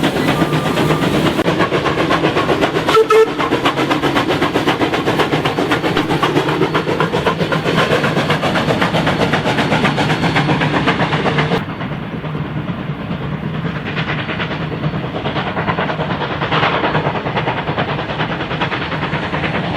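Steam train running along the track with rapid clatter, a short whistle toot about three seconds in. Past the halfway mark the sound drops in level and turns duller, and the running noise continues.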